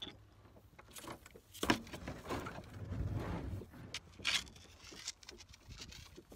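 Kayak paddle strokes: the blades dip and splash in the water in uneven strokes, with a sharp knock a little under two seconds in.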